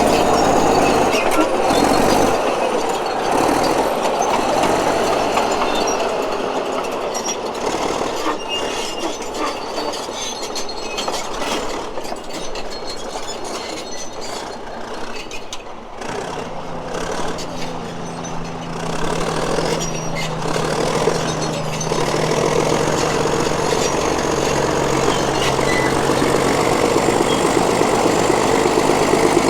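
Heavy diesel engine running, with scattered metallic clanks and clatter. It eases off through the middle and comes back steadier and louder from a little over halfway through.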